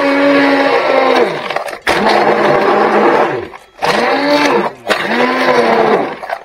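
Immersion blender motor whirring as it beats raw eggs in a steel bowl. It is stopped and restarted about four times, its pitch winding down at each stop and rising again as it spins back up.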